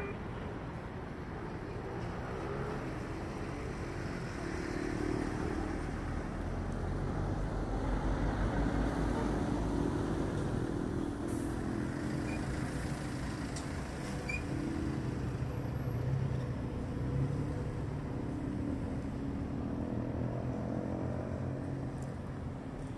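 Jet engines of a Boeing 737 airliner running at low power as it rolls along the runway after landing, heard from a distance: a steady low rumble that swells a little in the middle.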